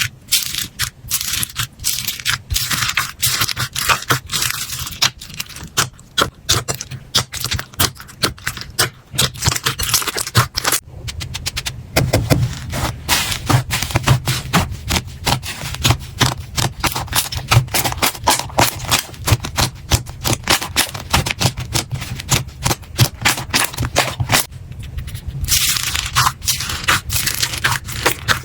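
Slime being squeezed and pressed by hands, making a dense, fast run of small crackling pops and clicks. The texture changes about eleven seconds in, adding low thuds, and changes again near the end.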